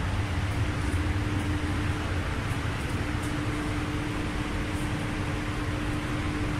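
Paint spray booth's ventilation fans running: a steady rush of air with an even hum.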